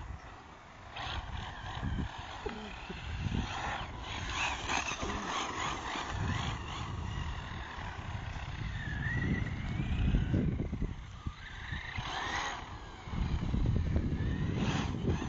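Losi 8ight 1/8-scale RC buggy with a Neu 1512 brushless motor on a 5S battery, driven hard: the motor whines, with a rising whine about nine seconds in as it speeds up, and the tyres and chassis rumble over the ground in bursts.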